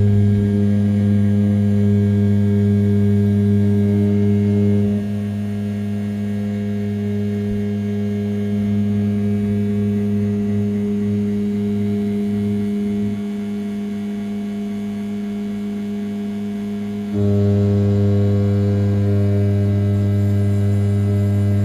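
500 W brushless spindle of an RZ420 desktop CNC router milling A7075 aluminium at 6000 rpm: a steady hum pitched at about 100 Hz with its overtones. It gets quieter about five seconds in and louder again about seventeen seconds in as the cutting load changes along the toolpath.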